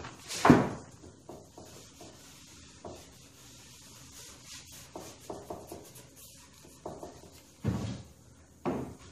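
A rag rubbing wood stain along the edge of a pine board, heard as faint scattered wiping strokes. A loud wooden knock about half a second in, and two duller thumps near the end, come from the board being handled on the bench.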